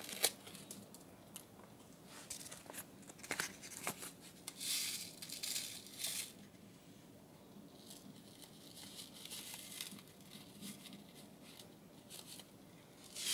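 A packet being handled and opened: scattered crinkling and tearing crackles, with a longer rustle about five seconds in and a louder crackle at the very end.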